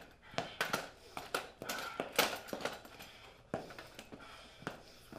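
A webbed aluminium folding lawn chair being handled and set down on a concrete floor: a quick run of light clicks, knocks and rattles of its metal frame, with rustling movement, busiest about two seconds in.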